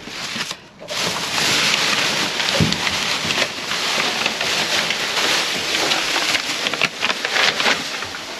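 Rummaging through a dumpster: dense rustling with many small knocks and clicks, starting about a second in.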